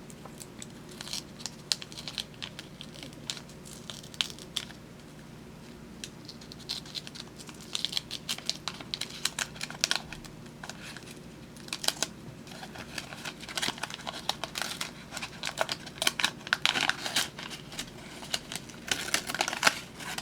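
Waxed-paper wrapper of a 1975 Topps wax pack crinkling and tearing as it is opened by hand, in irregular bursts of crackly rustling.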